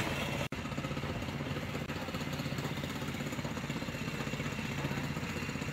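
Mini bike's small gas engine running steadily at low speed, with an even, rapid firing pulse. The sound drops out for an instant about half a second in.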